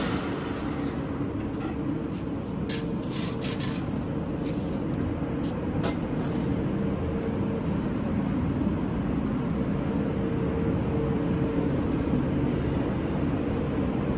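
High-speed wire straightening and cutting machine running steadily, with a scatter of sharp clicks between about two and six seconds in.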